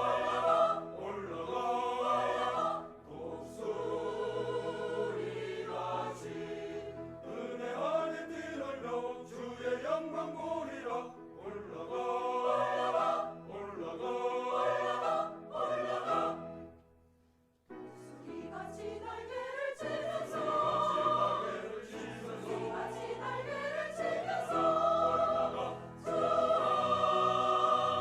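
Choir singing, the music dropping away to a brief silence about two-thirds of the way through and then starting again.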